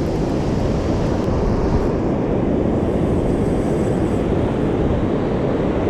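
Wind buffeting the microphone over the steady wash of heavy surf breaking on a beach: a loud, even rumble with no distinct events.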